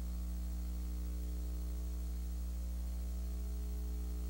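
Steady electrical hum with a faint hiss, unchanging throughout: mains hum on the recording.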